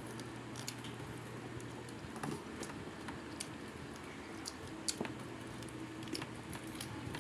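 Close-up eating sounds: wet chewing and lip smacks while eating adobo chicken feet, heard as a scattered run of small clicks.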